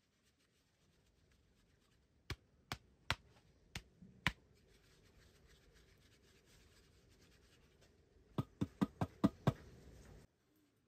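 Sharp knocks: five about half a second apart, then after a pause a quicker run of six at about five a second, over a faint hiss that cuts off suddenly.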